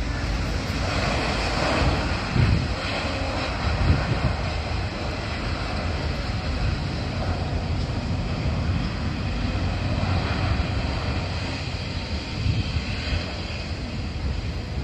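Distant Airbus A350-900 airliner with Rolls-Royce Trent XWB turbofan engines rolling along the runway after landing: a steady jet-engine rumble.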